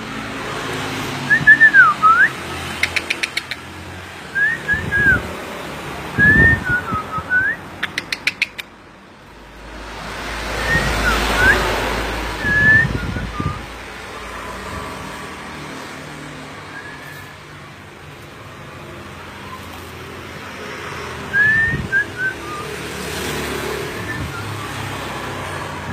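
Common iora (cipow) calling: short, clear whistled notes that swoop up and down, given in small groups of two to four with pauses between. A few quick rattling click trains come in between.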